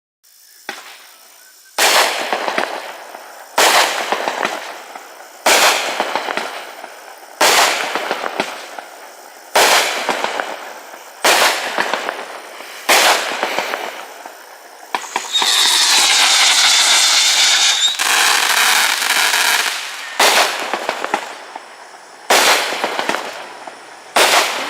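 A 45-shot, 500-gram Black Cat consumer fireworks cake firing, one sharp shot about every two seconds, each trailing off in a fading crackle and hiss of strobing stars. About fifteen seconds in, a few seconds of overlapping shrill whistles from whistling-tail shells.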